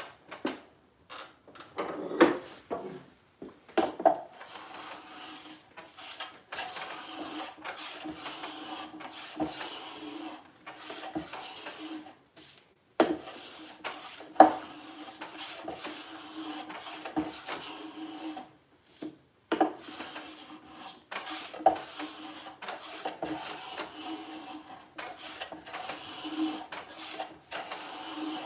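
Hand plane taking repeated strokes along the edge of a wooden drawer side held in a bench vise, a rasping shave on each pass, trimming the drawer to fit its opening. A few separate knocks come first, before the steady planing begins, which then pauses briefly twice.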